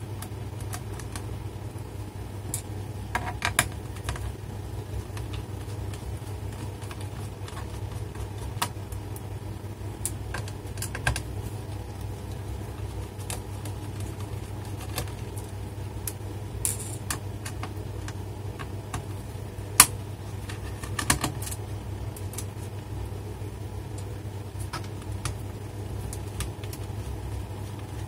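Sparse small clicks and taps of a screwdriver working screws out of a laptop's plastic underside case, with a few sharper clicks, over a steady low hum.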